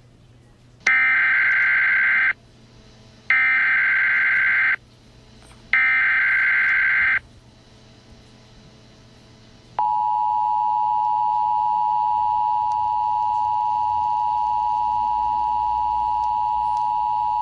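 Emergency Alert System tones. First come three bursts of buzzy digital data tones (the SAME header), each about a second and a half long with a gap of about a second between them. About ten seconds in, the steady two-tone attention signal starts and holds through the end; it announces an emergency alert broadcast.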